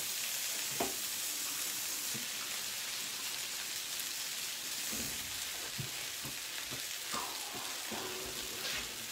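Vegetable hash frying in duck fat in a pan, a steady sizzle, with a few faint knocks.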